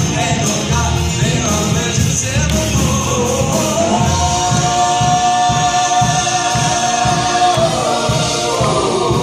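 Live gospel band playing with several vocalists singing over electric bass, guitars, keyboard and drums, to a steady beat. A single long note, rising into place, is held through the middle and stands out above the band.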